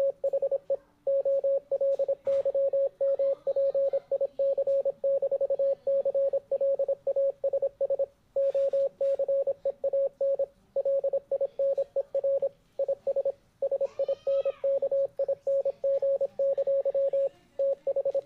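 Morse code sent as a single steady mid-pitched tone, keyed on and off in quick dots and dashes, with short pauses between characters and a few longer gaps between words.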